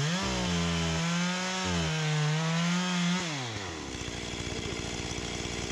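Gas chainsaw revving up to high speed, holding there for about three seconds with small dips in pitch, then dropping back to a fast idle.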